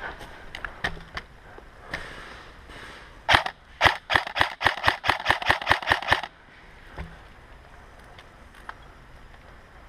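Airsoft guns firing: a few scattered faint snaps, two loud shots about three seconds in, then a quick string of about a dozen shots, roughly six a second, that stops suddenly after about two seconds.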